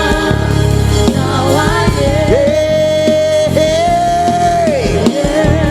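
Live gospel praise music: a band with a pulsing bass and drums backs singing, and one long note is held from about two seconds in until nearly five.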